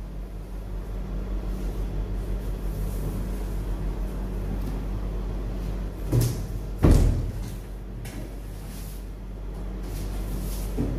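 Long cardboard bike box being opened by hand: flaps rubbing and rustling, with two sharp thumps about six and seven seconds in as the flaps are pushed open, and a smaller knock near the end. A steady low hum runs underneath.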